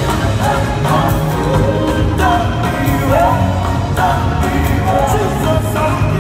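Church choir singing with a live band, heard from the audience in a large hall: several voices carrying a melody over steady bass and drums.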